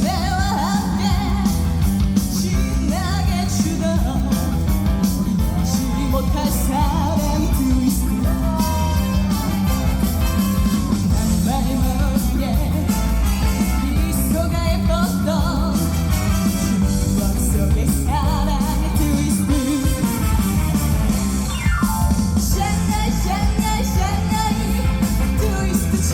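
A female trot singer singing an upbeat song live, with a steady-beat instrumental accompaniment that includes guitar.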